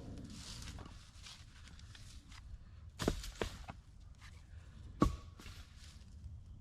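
A few sharp knocks or cracks, about three, over faint rustling.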